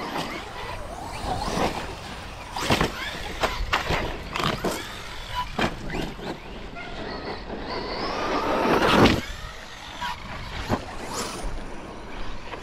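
Electric RC basher truck's brushless motor whining in short bursts, its pitch sweeping up and down with the throttle. About nine seconds in comes a longer rising whine, the loudest part, which then cuts off.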